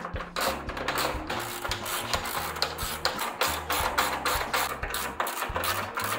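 Screws being driven into a garage door roller bracket, a continuous mechanical clatter with many short clicks.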